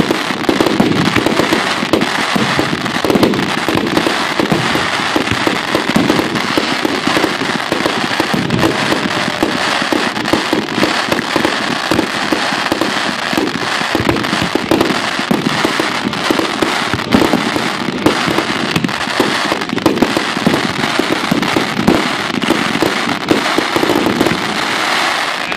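Fireworks bursting close overhead in a dense, unbroken run of rapid crackling and popping, with frequent heavier booms mixed in.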